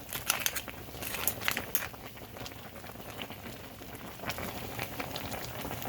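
Pot of seafood boil bubbling, with irregular crackles and small clicks.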